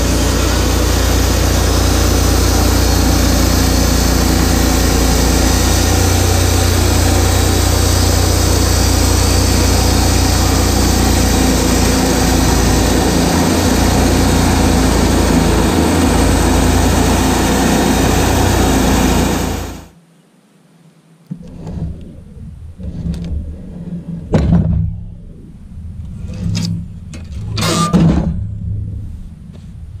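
Wood-Mizer LT10 portable band sawmill running and cutting through a log: a loud, steady mix of engine and blade noise that stops abruptly about two-thirds of the way through. After that come quieter knocks and scrapes as the sawn slab is handled.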